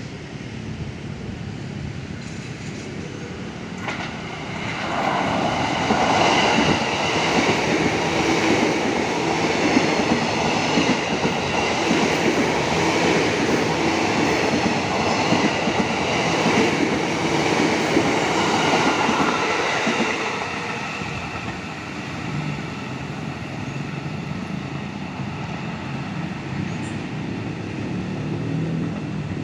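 A JR 203 series electric commuter train passing close by, its wheels running on the rails. The sound swells about five seconds in, stays loud for about fifteen seconds as the cars go by, then fades as the train moves away.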